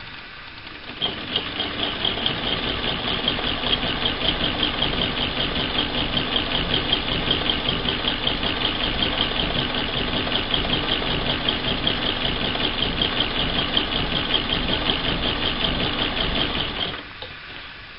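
1937 Frister and Rossmann transverse-shuttle sewing machine sewing a seam through two fabric strips at a steady pace: a fast, even mechanical clatter that starts about a second in and stops shortly before the end.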